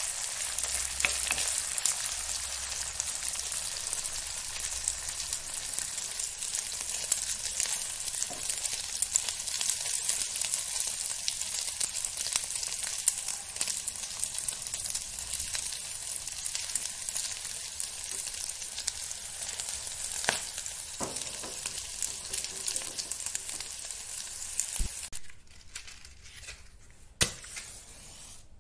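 Sliced sausage sizzling steadily as it fries in hot oil in a steel pan, stirred with a wooden spatula. The sizzle cuts off near the end, followed by a single sharp strike of a match.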